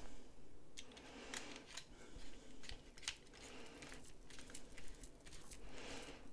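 Faint small metallic clicks and scrapes of a screwdriver turning a screw into a fixed-blade knife's handle scale, with light handling of the knife.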